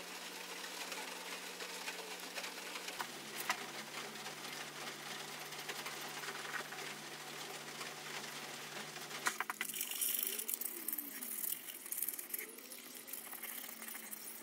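Faint scratching of a paintbrush working enamel paint over a rough cast-iron vise jaw, with a few light clicks and a low steady hum that stops about two-thirds of the way through.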